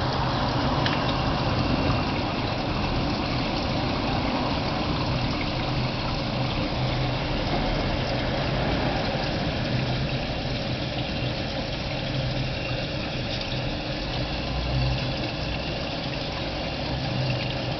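Goldfish tank's pump running: a steady motor hum with water bubbling and trickling.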